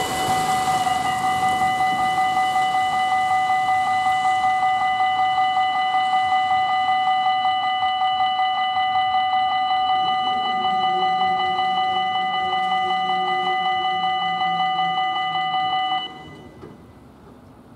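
Electronic warning bell of a Belgian level crossing ringing with a rapid, even pulsing tone while the barriers are lowered. It cuts off suddenly about sixteen seconds in, once the barriers are down; a fainter low hum joins it for the last few seconds before that.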